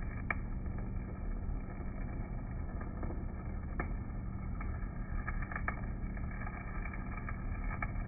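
Stick-welding arc from an EZ50 basic electrode, crackling and hissing with scattered sharp pops, over the steady low hum of an Elin rotary DC welding generator.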